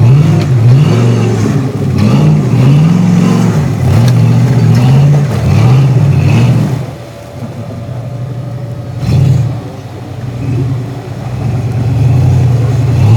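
Off-road Jeep's V8 engine revving up and down in repeated quick surges under load, then settling to a lower note with one short blip before picking up again near the end.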